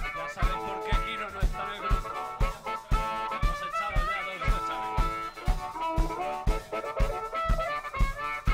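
Live blues-rock band playing: an amplified harmonica leads with bending notes over electric guitars, bass and drums keeping a steady beat.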